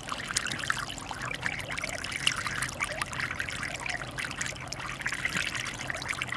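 PoolSkim automatic pool surface skimmer, driven by the pool's return jet, splashing water steadily as it draws surface water and debris into its basket. The noise is louder here because a few large pieces of styrofoam are caught in the basket.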